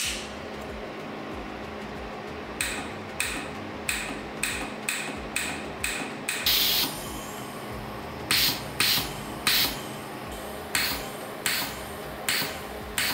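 24 V solenoid gas valve clicking open each time the TIG torch trigger is pressed, every click followed by a short hiss of argon out of the torch: about fifteen quick bursts in runs, one held a little longer about halfway. A steady low hum runs underneath.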